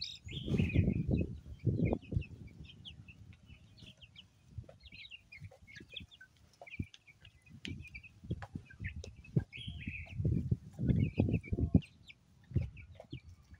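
Flock of young chickens peeping and cheeping in many short high calls while pecking at a plastic feed dish, with frequent sharp pecking taps. Two spells of low rumbling noise, near the start and again about ten seconds in, are the loudest sounds.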